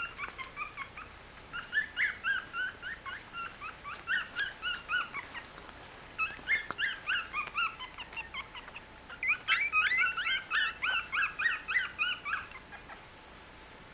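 Young Yorkshire Terrier puppies squeaking and whimpering in quick runs of short, high calls, several a second, in three bouts that stop shortly before the end.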